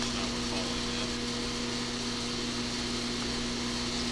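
Steady machine hum with a constant low drone and an even hiss over it, unchanging throughout.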